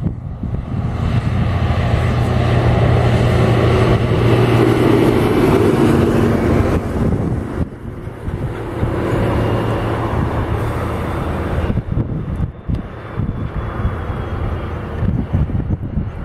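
Airbus A330 airliner's jet engines on low final approach: a steady rumble with a low hum, loudest a few seconds in as the aircraft passes, then fading and growing unsteady.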